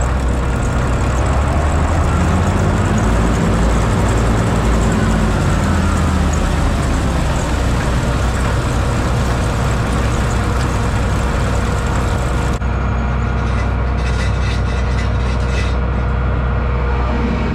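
Combine harvester running steadily, a loud low engine drone with a steady machinery whine over it. About three-quarters of the way through, the sound suddenly turns duller as the high hiss drops away.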